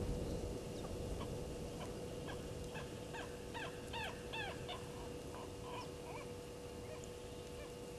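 A bird calling in a quick run of short, falling notes, densest from about three to five seconds in, over a steady low hum.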